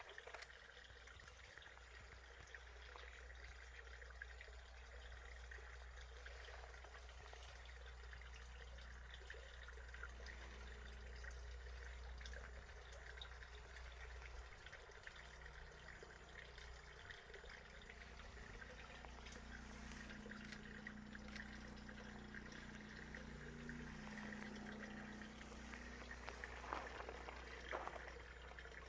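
Faint trickling water over a low steady hum, with a few faint clicks.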